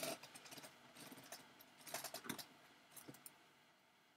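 Faint, scattered clicks and taps of computer mouse and keyboard use, thinning out about three seconds in.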